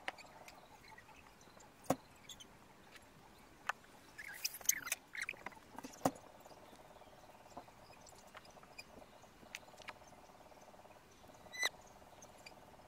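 Quiet outdoor ambience with scattered faint clicks and knocks, and a short run of high chirping calls about four to five seconds in, with another single chirp near the end.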